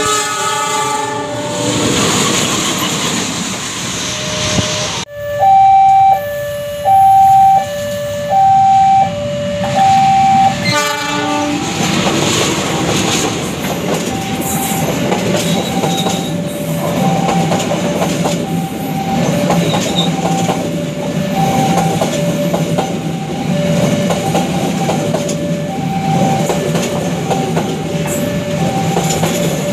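Train passing with rumbling and clattering wheels, a horn sounding at the start. An electronic two-tone warning alternates high and low notes about once every 0.7 s, loudest from about five to eleven seconds in and then fainter, in the manner of a level-crossing alarm.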